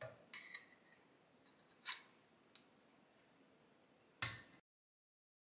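A handful of sharp clicks and short metal clinks, one ringing briefly, as a spring-loaded espresso tamper and a 58 mm portafilter are handled and the portafilter is fitted into the Flair 58's brew head. The loudest knock comes about four seconds in, and then the sound cuts off.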